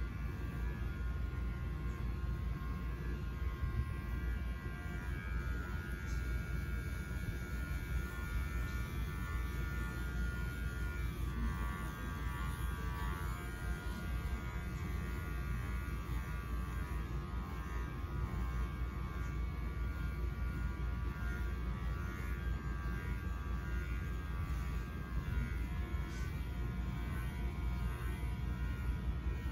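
Electric dog grooming clippers running steadily with a low hum.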